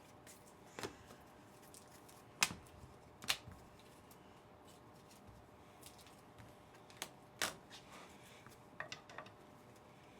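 Football trading cards being handled and flipped through: scattered faint, sharp flicks and snaps, the two loudest about two and a half and three and a half seconds in, over a faint steady hum.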